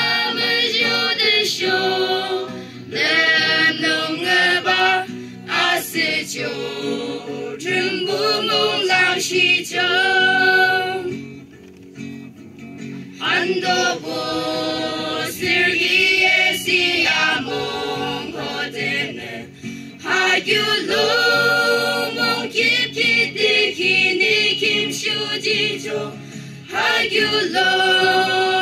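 A mixed choir of men and women singing a song with acoustic guitar accompaniment, in phrases with brief pauses between them.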